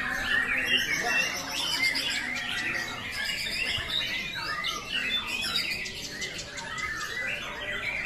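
Several white-rumped shamas (murai batu) singing at once: a dense, unbroken overlap of rapid chirps, whistles and trills.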